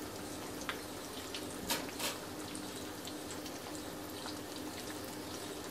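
Breadcrumb-coated chicken wings deep-frying in hot oil in a wok: a steady sizzle with scattered pops and crackles.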